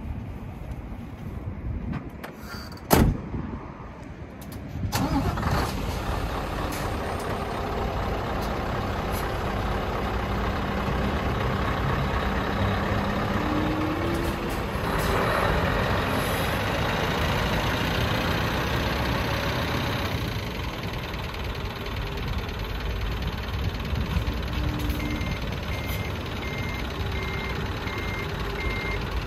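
A truck cab door shuts with a single loud bang about three seconds in, then the Scania tractor unit's diesel engine starts and runs steadily. Near the end the truck's reversing alarm starts beeping as the unit backs up toward the trailer.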